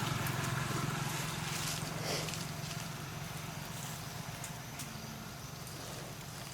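A low, steady engine hum that gradually fades away, with scattered faint clicks over it.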